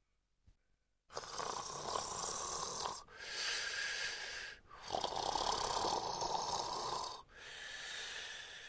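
A man snoring in bed, starting about a second in: four long snores in a row, each separated by a brief pause.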